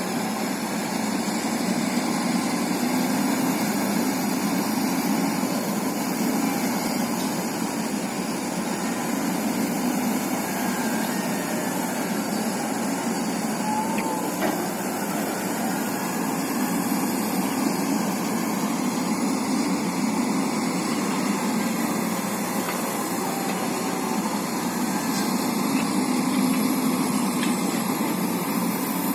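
Heavy diesel machinery running steadily: a CAT excavator working over a dump truck, an even engine noise with no distinct knocks or revs.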